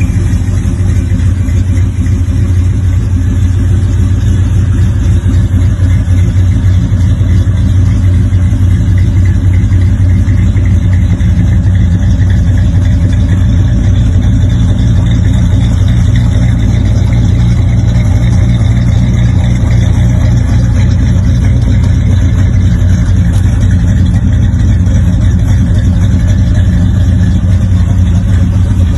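1957 Chevrolet 210 sedan delivery's 350 small-block V8 idling steadily.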